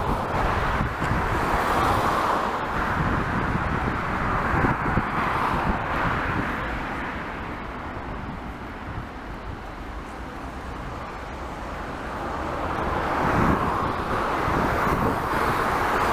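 Road traffic noise: cars passing on a multi-lane road with wind rushing over the microphone. The rush dips in the middle and swells again near the end.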